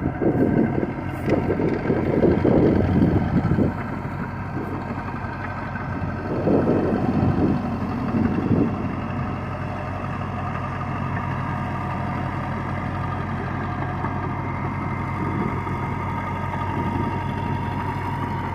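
An engine running steadily, with louder rough, noisy stretches for the first few seconds and again from about six to nine seconds in.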